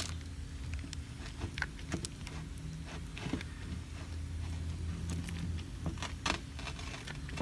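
Rubber-gloved hands smearing thick grease around a plug valve's metal plug, with scattered soft rubs and smacks. A steady low hum runs underneath.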